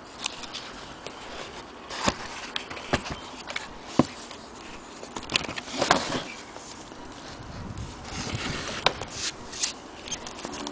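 Handling noise from an old accordion being held and turned by hand: irregular clicks and light knocks of its metal corners and case, with rustling between, the sharpest click about four seconds in.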